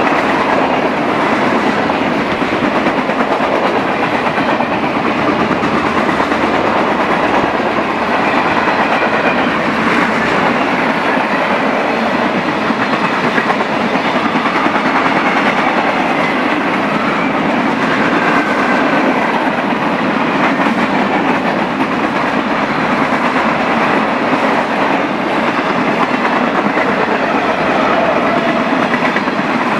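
Freight train cars rolling past, a steady clatter of steel wheels on the rails with clickety-clack. The cars are a mixed consist of centerbeam flatcars loaded with lumber, boxcars, tank cars and covered hoppers.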